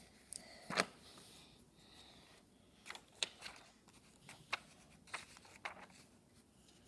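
Paper instruction booklets being handled and moved on a foam mat: scattered rustles and light taps, the loudest about a second in.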